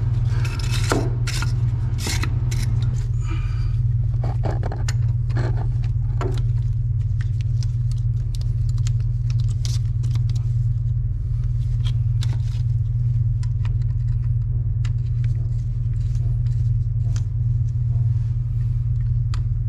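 Metal hand tools clinking and scraping as pliers and a wrench grip a threaded stud beside a boat's stern tube, working it loose to pull it out. The clinks come thickest in the first several seconds, then lighter and sparser, all over a steady low machine hum.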